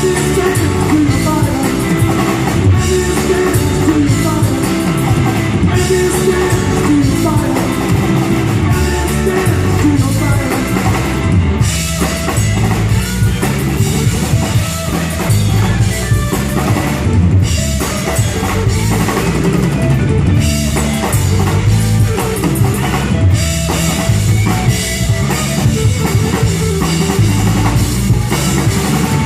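Rock band playing an instrumental stretch without vocals: drum kit with kick drum, bass and electric guitar.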